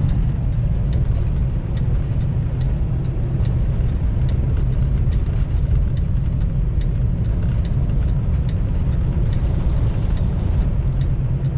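Semi truck's engine and road noise heard from inside the cab while driving at a steady speed: an even low drone with no change in pitch.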